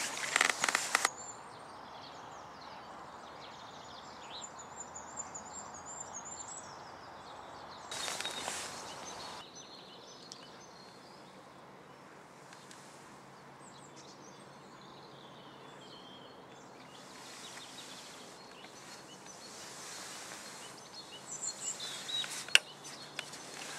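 Quiet lakeside outdoor ambience with a steady hiss. A small bird sings a high warbling phrase a couple of seconds in, and a few sharp knocks near the end come from the rod and tackle being handled.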